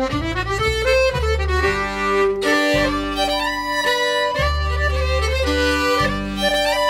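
Background music: a fiddle melody over held bass notes.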